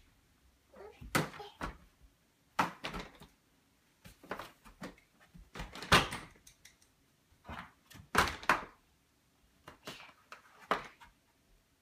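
Padded boxing gloves hitting a hollow plastic step stool as it is knocked over and tipped around: a run of uneven knocks and thuds every second or so.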